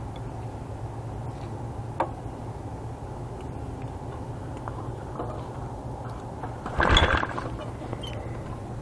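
Small gasoline engine being pull-started by its recoil starter cord, with a steady low hum underneath, a click about two seconds in, and one loud, sharp pull about seven seconds in.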